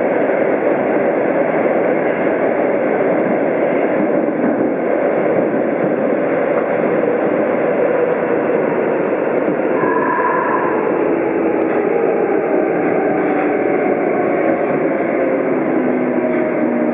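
Tokyo Metro 02 series subway train running through a tunnel, heard from inside the car: a loud, steady rumble of wheels on rail, with a brief higher squeal about ten seconds in. Over the last few seconds a motor whine falls steadily in pitch as the train slows for a station.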